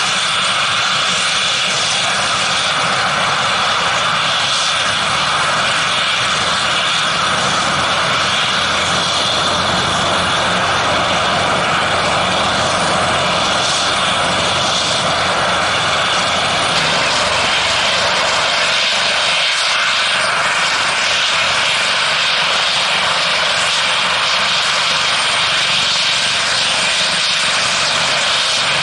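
Airbus H225M Super Cougar helicopter running on the ground with main and tail rotors turning, its twin turboshaft engines giving a steady high whine over the rotor noise.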